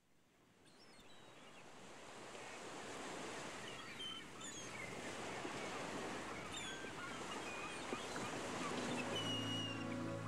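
Ocean surf washing steadily with birds chirping in short falling calls, fading in over the first few seconds. Music comes in near the end.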